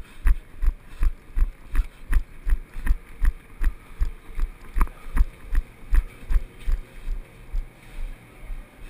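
Running footsteps: steady, evenly spaced thuds about three a second, weaker and less regular near the end.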